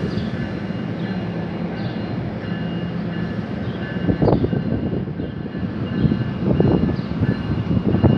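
Train running through on the track: a dense steady rail rumble with faint steady tones above it, surging louder about every two seconds as the cars go by.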